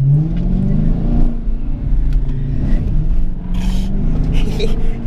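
2014 Dodge Challenger R/T's 5.7-litre Hemi V8, fitted with a cold air intake, heard from inside the car as it accelerates: the engine note rises over the first second or so, then holds steadier as the car drives on.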